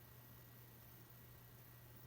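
Near silence: a steady low hum under faint hiss.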